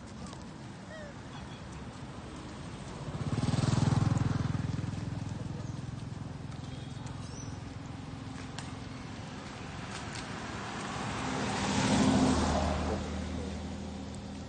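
Traffic passing on the road: two motor vehicles drive by one after the other, the first about four seconds in and the second about twelve seconds in, each engine swelling and fading away.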